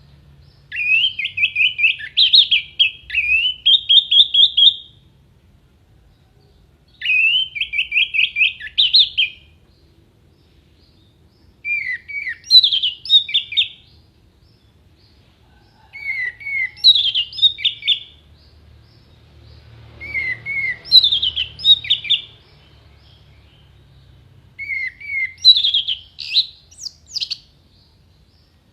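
Orange-headed thrush (anis merah) singing in six short phrases of rapid, sharp high notes, each phrase about two to three seconds long, with pauses of about two seconds between them.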